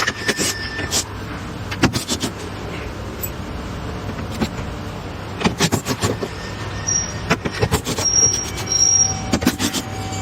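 Plastic liftgate trim cover being pulled and pried loose: scattered clicks and knocks from the panel and its clips, with a few short high squeaks near the end, over a steady low hum.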